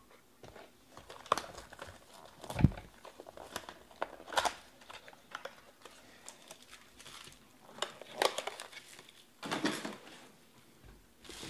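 Plastic shrink wrap crinkling and tearing as a trading-card box is unwrapped and opened by hand, in irregular rustling bursts. There is a single heavier thump about two and a half seconds in.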